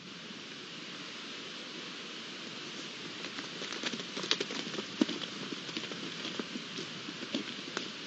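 Red deer hinds moving and feeding on dry ground: irregular crackles and taps, thickest in the second half, over a steady hiss.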